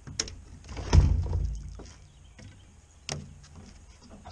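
Three knocks and thumps on a flat-bottomed fishing boat's bow deck. The loudest, with a deep thump, comes about a second in, and a smaller knock near the end.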